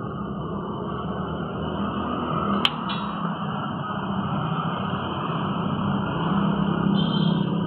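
Steady background rumble with a low hum that grows a little louder near the end, and one sharp click about two and a half seconds in.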